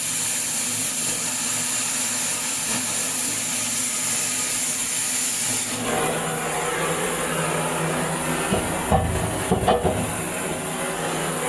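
A loud, steady hiss that changes to a lower, rougher noise about halfway through, with a few sharp knocks near the end.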